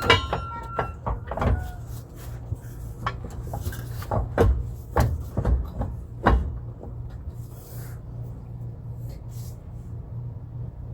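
Irregular metal clunks and knocks, about six in the first six seconds, as a front differential is shifted and worked loose on a floor jack; a steady low hum runs underneath throughout.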